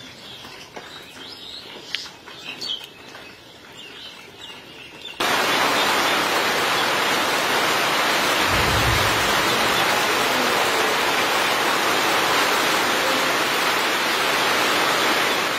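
Faint bird chirps over quiet outdoor ambience. About five seconds in, a loud, steady hiss of heavy rain starts abruptly and continues, with a brief low rumble about nine seconds in.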